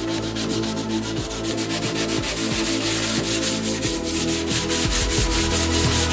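Sandpaper on a hand sanding block rubbed back and forth over cured body filler on a car tailgate panel, a steady run of rasping strokes.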